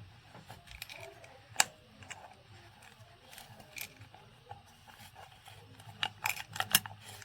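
Small parts of an oil filter housing being handled: scattered light clicks and knocks, one sharp click about a second and a half in and a quick run of clicks near the end.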